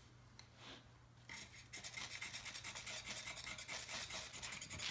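Spine of an Ontario SK5 Blackbird knife scraping a small ferrocerium rod in quick, rasping strokes, several a second, beginning about a second in, to throw sparks onto pine tinder.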